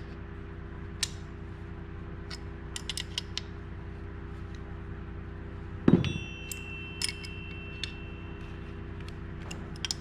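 Crescent wrench and bearing separator at work on a chainsaw crankshaft bearing: small metallic clicks and creaks as the bolts are turned down. About six seconds in comes one heavy knock, followed by a metallic ring that fades over a few seconds, with a steady low hum underneath throughout.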